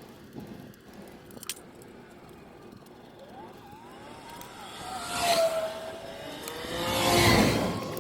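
Two vehicles driving past one after the other, each swelling up and fading away with a sliding pitch. A light click comes about a second and a half in.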